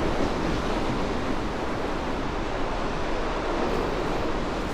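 Steady rushing noise of strong wind on a camera microphone, even throughout with no breaks.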